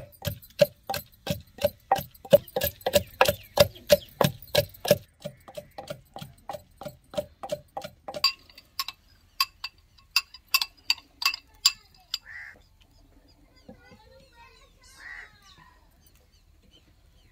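Long wooden pestle pounding in a wooden mortar with steady strokes about three a second, crushing fenugreek, coriander, green chillies and salt into a chutney. The strokes stop about twelve seconds in.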